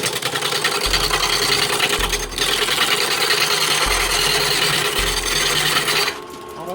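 Curved-edged turning tool cutting into a spinning wood blank on a lathe, roughing it down with a steady scraping rasp. The cut breaks off briefly near the end.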